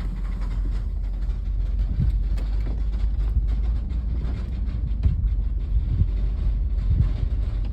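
A vehicle driving slowly over a rough, bumpy road: a steady low rumble with irregular knocks and rattles as it bounces over the bumps.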